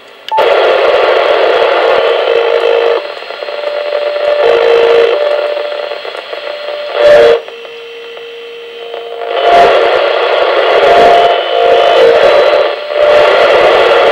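Yaesu all-mode transceiver receiving in FM on the 2 m band while being tuned: loud steady receiver hiss carrying faint whistling tones that jump in pitch every second or two, with a click at the start and a few short crackles.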